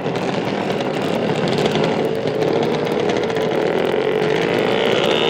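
A steady, engine-like mechanical buzz with a whine that slowly rises in pitch.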